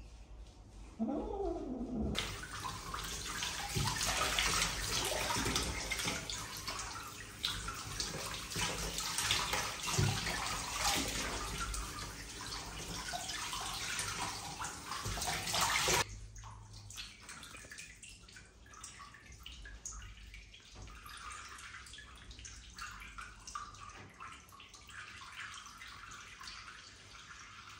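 Bathtub tap running in a full stream onto a wet cat being rinsed, with water splashing in the tub. The tap is shut off suddenly about halfway through, leaving faint dripping and splashing.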